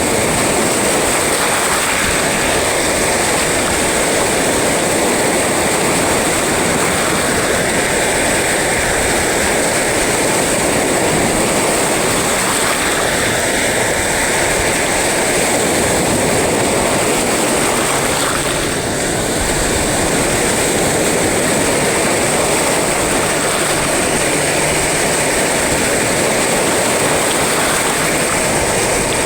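Sea waves breaking on the shore, a steady dense rush of surf noise with little rise and fall.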